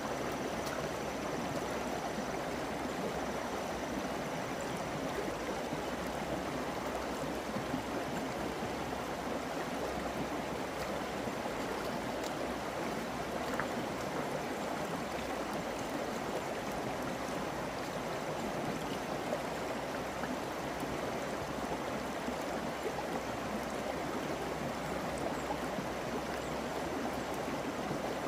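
Steady rushing of flowing water, even throughout, with a few faint ticks.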